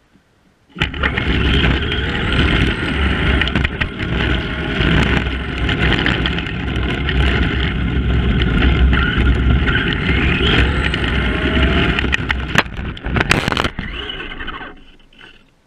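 Battery-electric Tamiya Madcap RC car driving fast on tarmac, heard from its bumper-mounted camera: motor and gear whine rising and falling with the throttle over loud tyre rumble and rattling. About twelve and a half seconds in come sharp knocks and a scrape as it crashes onto its side, and the noise dies away soon after.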